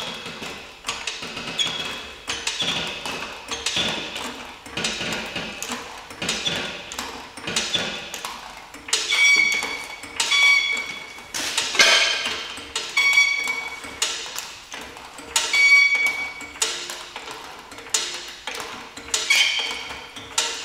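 Background music: a run of ringing, plucked or bell-like notes, about one a second, with the pitch moving from note to note.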